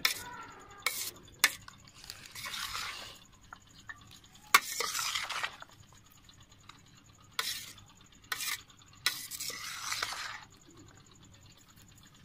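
A metal spoon stirring and tossing wet macaroni-and-chickpea chaat in a steel platter: several bouts of scraping and swishing, with a few sharp clinks of spoon on metal.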